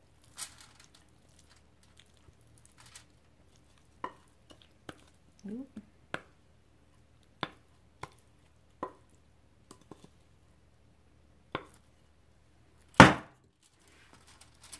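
A wooden spoon scooping, scraping and tapping against a glass mixing bowl while a thick spaghetti squash and cheese mixture is spooned into squash shells: scattered short clicks and knocks, one every second or so, with one much louder knock near the end.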